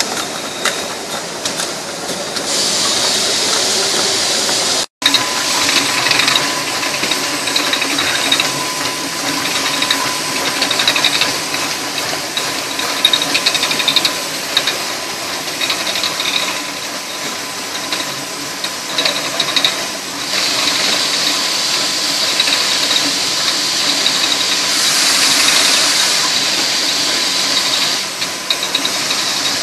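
Rotary PET bottle filling and capping machine running, with a continuous mechanical rattle and a strong hiss that swells louder for a while near the end. The sound cuts out for an instant about five seconds in.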